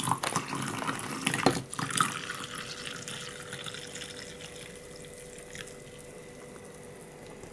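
Heated milk pouring from a small enamel pot into a mug of cocoa powder: a steady liquid splash that slowly tapers off, with a few light knocks in the first two seconds.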